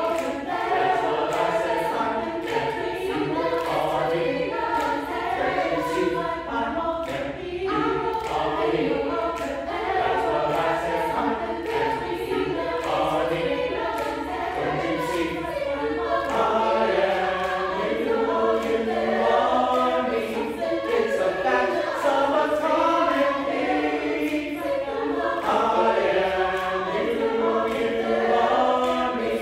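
Mixed choir of women's and men's voices singing together, continuously.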